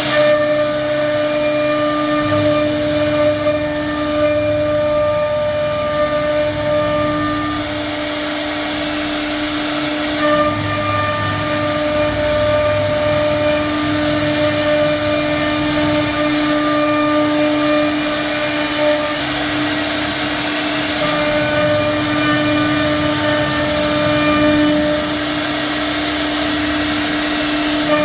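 CNC router running on a door panel: a steady whine of several held tones over a rushing noise, with small swells in level as it cuts.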